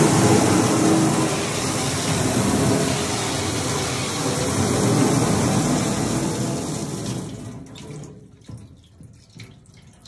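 A strong water jet from a hose fitting fed through a 25 psi pressure regulator splashes into an overflowing plastic bucket and a stainless steel sink with a steady rush. The rush dies away about seven to eight seconds in, leaving a few faint knocks.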